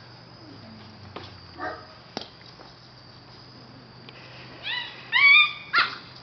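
Great Dane puppy yelping: two high-pitched, rising yelps near the end, the second louder and held for about half a second, after a fainter short whimper earlier on.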